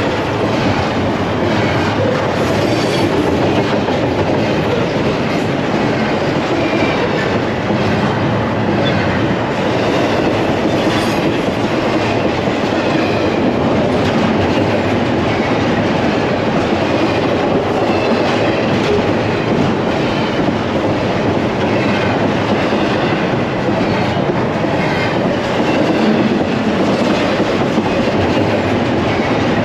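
Double-stack container freight cars rolling past at close range: a steady rumble of steel wheels on the rails, with repeated clicks as the wheels cross rail joints.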